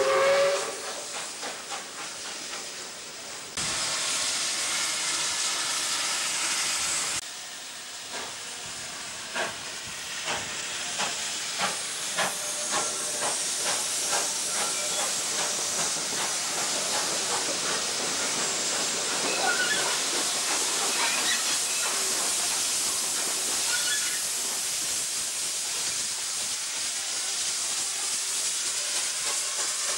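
Standing South Australian Railways 520-class steam locomotive hissing steam steadily, with scattered clicks and knocks over it. The tail of a steam whistle sounds at the very start.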